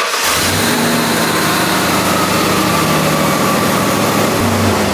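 A 1994 Ford E350's 5.8-litre (351) Windsor V8 running at a steady idle on freshly gapped new spark plugs, test-run after the plug change.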